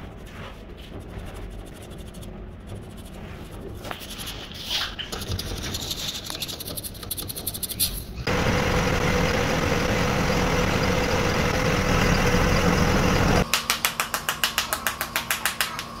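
Workshop machine noise: light scraping and clicks at first, then from about halfway a loud steady rushing noise with a held tone, which gives way near the end to a rapid, even mechanical pulsing of about five beats a second.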